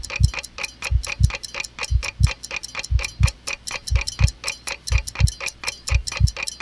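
Ticking-clock timer sound effect: fast, even ticks about four a second, with a deeper knock about once a second.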